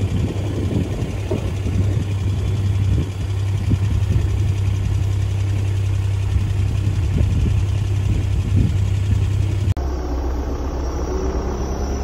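Farm tractor's diesel engine running steadily at idle, a loud low hum. About ten seconds in, the sound cuts to the same kind of engine hum heard from inside the tractor cab, slightly lower in pitch.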